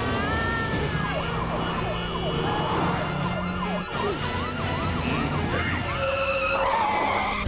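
Fire engine sirens sounding in a rapid up-and-down yelp, a few sweeps a second, with a steadier siren tone near the end.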